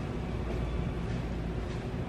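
Steady rain falling on a railway platform's corrugated roof, an even hiss with a low rumble underneath.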